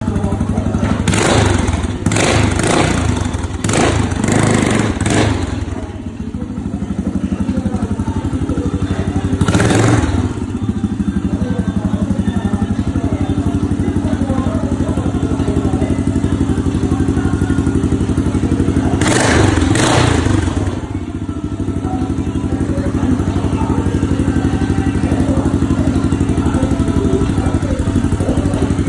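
Small motorcycle engine running steadily as the bike rides the sloped wooden track of a wall-of-death drum, swelling louder several times, with thumps from the wooden boards.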